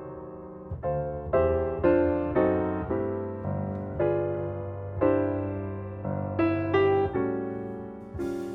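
Background piano music: a slow, gentle melody of single struck notes that ring and fade one after another.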